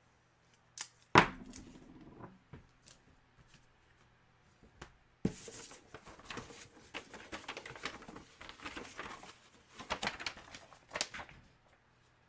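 A sharp knock about a second in, then several seconds of crinkly rustling and small clicks as packaging is handled and unwrapped.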